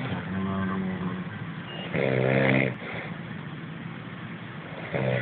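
A man snoring heavily in his sleep: three rasping, pitched snores, the loudest about two seconds in and another starting near the end.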